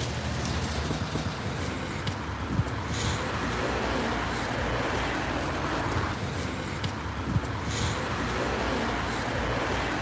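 Road traffic: cars driving past close by, a steady noise of tyres and engines that swells as each one passes.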